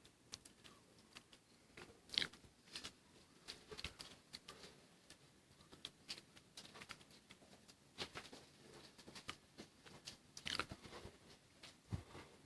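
Faint, irregular clicks and crunchy taps, with a few louder knocks and a dull thud near the end.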